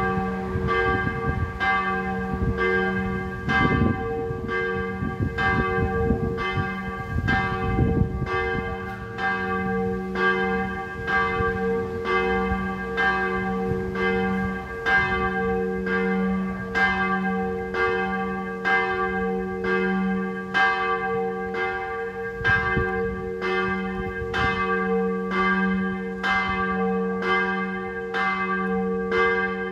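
Church bells ringing in a steeple tower, struck about once a second in a steady, even rhythm, their deep hum ringing on continuously beneath the strikes.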